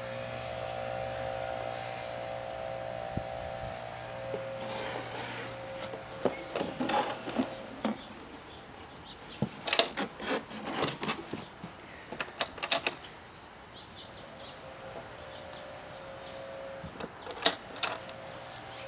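Cardboard rustling and scraping as a metal ammo can is unpacked from a shipping box, with clusters of sharp knocks and clicks from handling the box and can. A steady background hum is heard at the start and again near the end.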